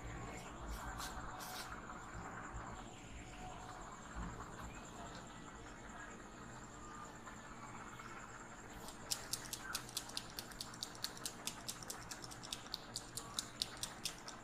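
Head massage: soft rubbing on hair and scalp, then from about nine seconds in a quick run of light, sharp clicks, about four a second.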